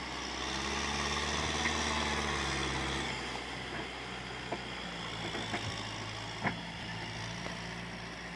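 Farm tractor engine working through deep mud, louder and higher for the first three seconds, then easing to a lower, quieter note. A few short sharp knocks come in the second half.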